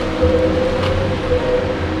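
Diesel engine of a Kenworth log truck pulling a full load of logs past, running at a steady note.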